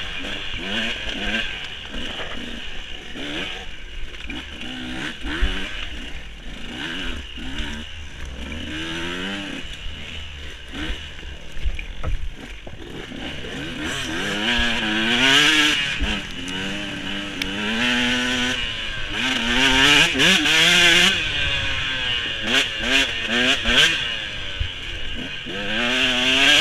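Off-road dirt bike engine revving up and down over and over as the rider works the throttle along a rough woods trail, louder in the second half. Scattered knocks and rattles from the bike as it goes over the bumpy ground.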